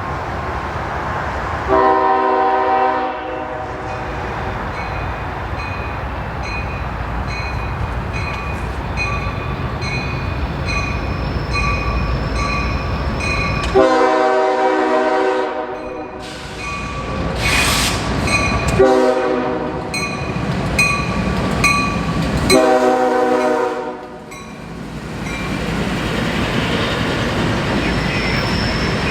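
Diesel freight train rolling by with a steady rumble and clacking of wheels over rail joints. Its air horn sounds four times: once about 2 s in, then three more between about 14 and 24 s in, the second blast the longest. A bell dings steadily in between.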